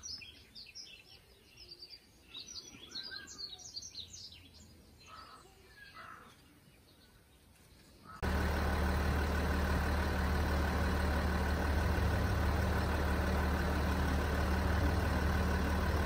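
Birds chirping faintly, then, after a sudden cut about eight seconds in, the steady low hum of a car engine idling, heard from inside the car.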